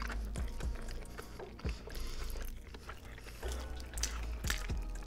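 Chewing and biting into Hot Cheetos-breaded fried chicken coated in cheese sauce, close to the mouth, with a few short crunches scattered through.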